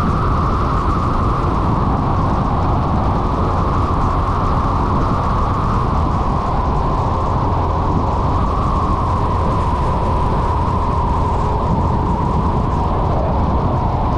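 Onboard riding sound of a Honda SH 300 scooter's single-cylinder engine under way, with steady wind rush on the microphone and road noise. A continuous drone that drifts slightly in pitch, with no breaks.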